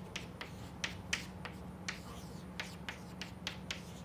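Chalk tapping and scraping on a chalkboard as an equation is written: an irregular run of short, sharp ticks, a few each second.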